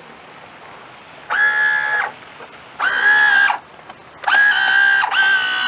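Electric motor of a Sea Hawk RC speedboat whining in short bursts of throttle, a steady high whine that starts and stops about three times, the last burst held longer.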